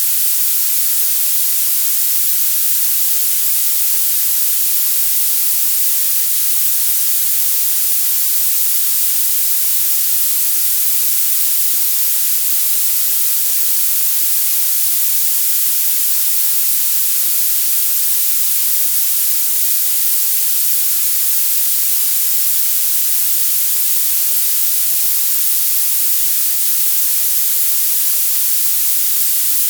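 Violet noise: a steady, loud, very bright hiss with almost no low end.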